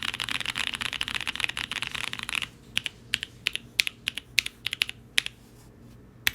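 Typing on a Mode Eighty mechanical keyboard with lubed and filmed NK Blueberry tactile switches, GMK keycaps and an aluminium plate. Fast, continuous typing for the first two and a half seconds, then slower single keystrokes at about two or three a second, a short pause, and a couple of quick strokes at the end.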